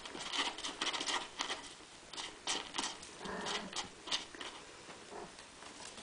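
Cat scratching and digging in granular litter in a plastic litter tray: quick, irregular gritty scrapes for about four seconds, then fainter and sparser.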